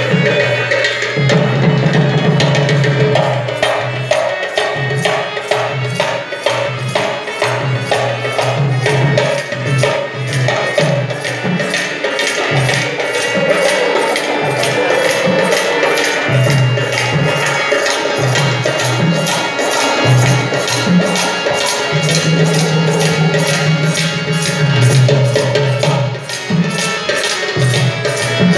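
Live Bangladeshi folk music played on stage: hand percussion keeps a fast, even beat under a low melody of held notes that shift in pitch every second or two.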